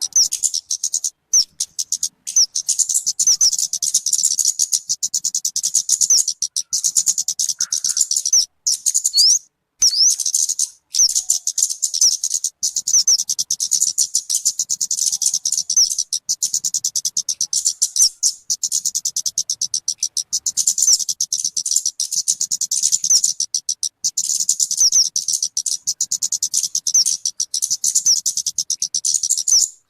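Rapid, high-pitched chirping call of the talokan (kemade) bird, a fast unbroken stream of short notes that pauses briefly a few times.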